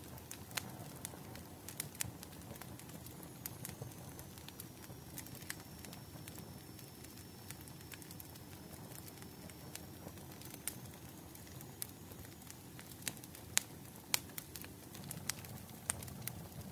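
Wood fire crackling: irregular sharp pops and snaps, a few louder ones near the end, over a low steady rumble of burning.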